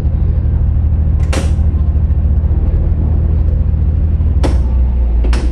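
Harbour assist boat's diesel engine running steadily with a low pulsing note that evens out about four and a half seconds in. Three short, sharp hisses cut in: one about a second and a half in and two near the end, as the control levers are worked.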